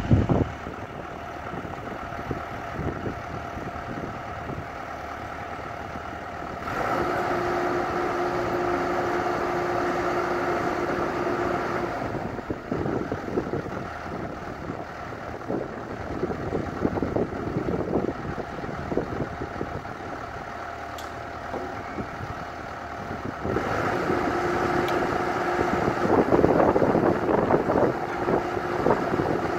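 A John Deere 120C hydraulic excavator running on a work barge, working a pile-driver attachment. The engine steps up in level twice, about seven seconds in and again near the end, each time with a steady tone as the hydraulics come under load.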